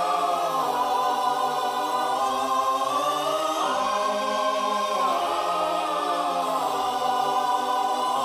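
Background music of sustained choral singing, several voices holding long chords that shift slowly.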